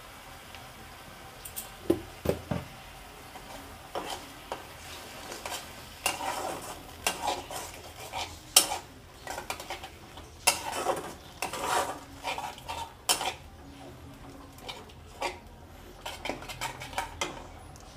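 Steel spatula stirring a thick sauce with fried onions around a black kadai, metal scraping and clinking on the pan in an irregular run of knocks and scrapes that begins about two seconds in and thins out near the end.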